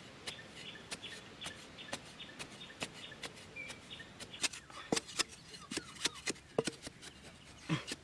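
A metal-bladed digging tool striking and chopping into dry sandy soil, a quick knock about twice a second.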